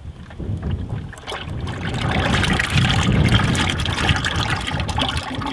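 Old engine oil draining in a steady stream from a 1946 Farmall M's oil pan into a plastic 5-gallon bucket, splashing into the oil already caught, with gusting wind buffeting the microphone.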